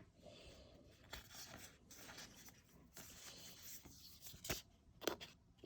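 Faint rustling and a few soft snaps of trading cards being handled and shuffled.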